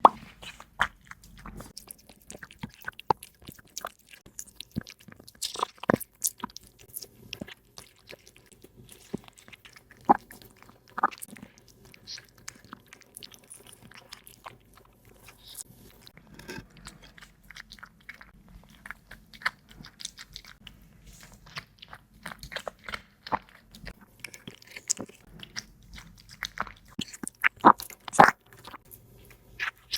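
Domestic cat chewing and crunching food close to the microphone, in irregular crunches and clicks, with a louder run of crunches near the end.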